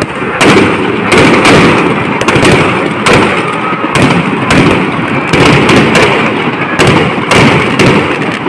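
Firecrackers bursting inside a burning Ravana effigy: loud sharp bangs at uneven intervals, roughly one to two a second, over a steady din.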